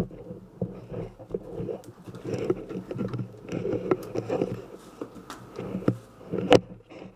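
Irregular knocks and clicks over rustling, the loudest about six and a half seconds in.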